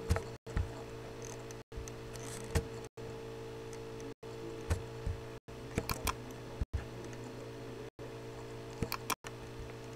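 Steady low hum with a few scattered sharp clicks, the clicks of a computer mouse as lines are drawn and dragged in MS Paint. The audio cuts out for an instant about once a second.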